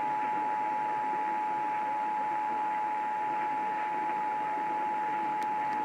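Emergency Alert System attention signal: the two-tone 853 Hz and 960 Hz alert tone, held steady, received over AM radio with a steady background hiss.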